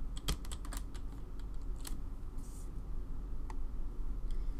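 A few scattered keystrokes on a computer keyboard, short separate clicks over a faint steady hum.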